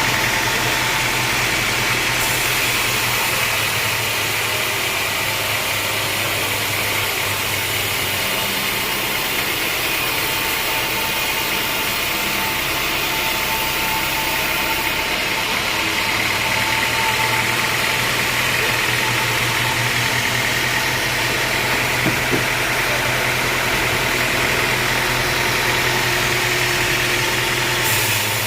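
Engine of a homemade band sawmill running steadily, with a hiss over it; its note changes about eight seconds in and again about halfway through.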